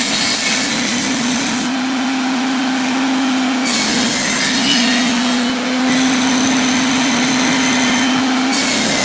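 Table saw running with a steady hum, its blade cutting into a small wooden stick; the high sawing noise comes and goes several times as the wood is fed into the blade and drawn back.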